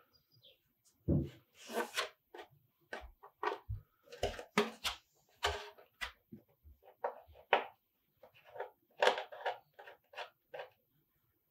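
Thin painted plastic RC car body being handled and flexed: irregular crinkling and crackling as it is turned over in the hands, with a few soft knocks.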